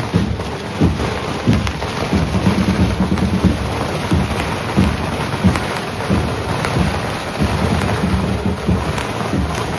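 A string of firecrackers going off, a dense run of irregular pops and low bangs.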